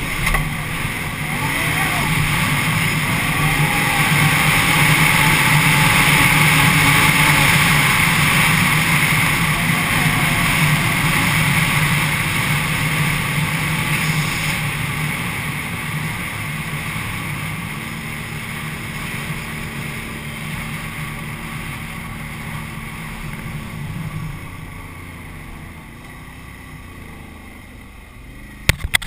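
Can-Am Renegade 800 ATV's V-twin engine running steadily at riding speed, under a rushing noise of wind and tyres. The engine note drops away after about 24 seconds and the whole sound fades as the quad slows.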